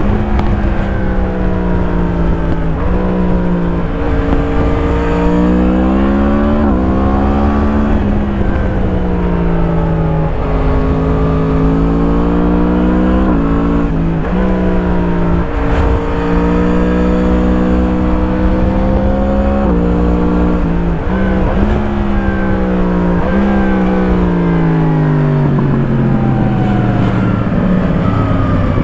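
2017 Yamaha MT-10's crossplane inline-four through an Akrapovič slip-on exhaust, heard from on board while riding: the engine note repeatedly climbs under acceleration and drops back at each gear change or roll-off, with a long fall in pitch near the end as the bike slows.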